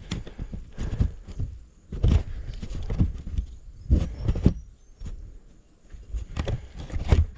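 Handling noise close to the microphone: irregular knocks and thumps with rubbing and scraping between them, as the action camera is wedged into position. The knocks come unevenly, roughly every half second to two seconds.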